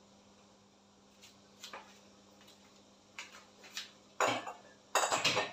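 Kitchenware clattering: a few light knocks and clinks, then louder clattering about four seconds in and again just before the end.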